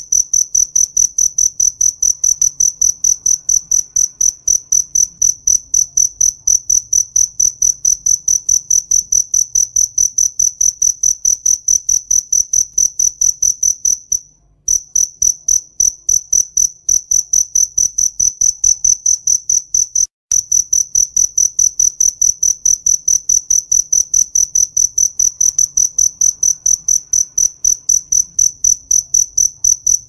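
Cricket chirping: a high-pitched chirp repeated evenly, about four times a second, with two brief breaks around the middle.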